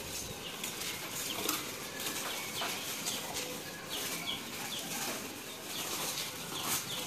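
Small birds chirping outdoors over a steady background hiss: many short chirps, each sliding down in pitch, repeating throughout.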